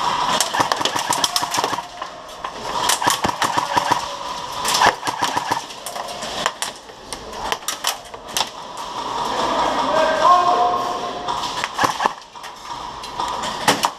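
Airsoft guns firing: clusters of sharp, rapid snapping shots come in several bursts, with shouting voices in between.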